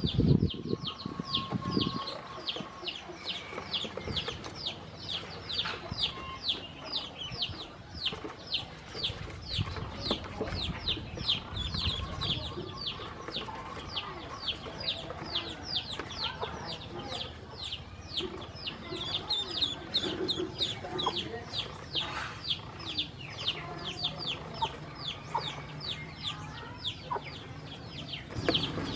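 Ducklings peeping continuously, a quick steady run of high, falling peeps about three a second, with a low thump right at the start.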